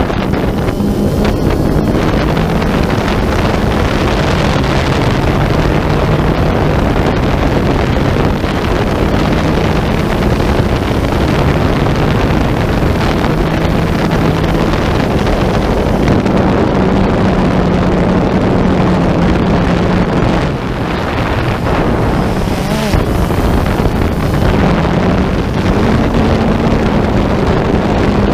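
A motor running steadily, its low hum shifting slightly in pitch every few seconds, under wind noise on the microphone.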